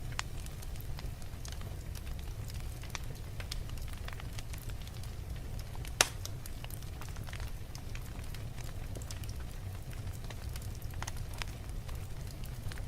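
Fire crackling in a fireplace: scattered small pops and snaps over a steady low rumble, with one sharp, louder pop about six seconds in.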